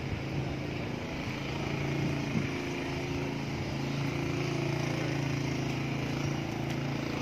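Small motor scooter engine running at low, fairly steady speed as it is ridden slowly through a slalom, growing slightly louder as it comes closer.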